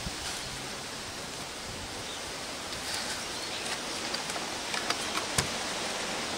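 Steady hiss of outdoor background noise, with a few faint clicks and rustles as spare cable is tucked into a bag on a bicycle frame. One sharper click comes about five seconds in.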